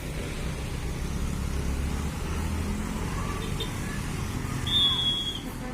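Road traffic going by with a steady low engine rumble. Near the end a short, loud, high-pitched tone sounds for about half a second.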